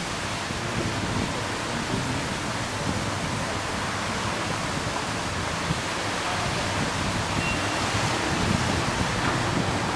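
Steady rushing hiss of a high-pressure water jet bursting up through the road surface from a broken underground water main, spraying back down onto the street.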